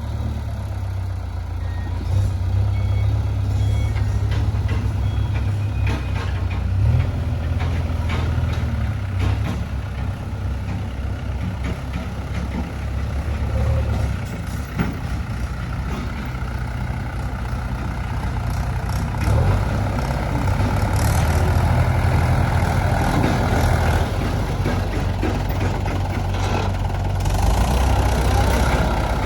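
Diesel engine of heavy earthmoving machinery running under varying load, its pitch and loudness rising about two seconds in and again past the middle, with scattered knocks and clanks of rock being moved.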